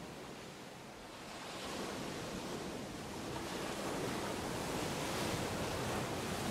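Ocean surf sound, a steady rushing wash of waves that grows gradually louder.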